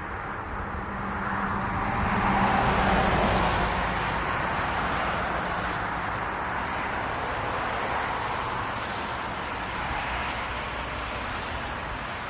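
Jet airliner passing low on its landing approach: a broad engine rush swells to a peak about two to three seconds in, then eases off into a steady roar.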